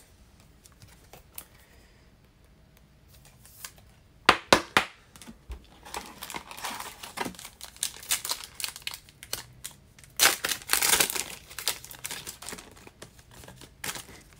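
Wrapper of a basketball trading card pack being torn open by hand: a few sharp taps about four seconds in, then crinkling, a louder tearing rip about ten seconds in, and more crinkling as the cards come out.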